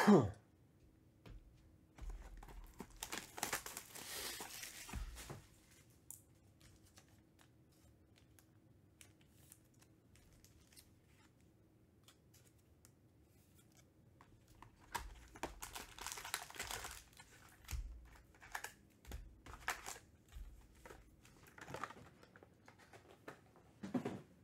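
Plastic wrapping on a Panini Recon basketball hobby box being torn and crinkled off, then the box opened and its foil packs taken out. There are two spells of loud rustling with scattered small clicks and taps of cardboard between them, after a short falling swoosh at the very start.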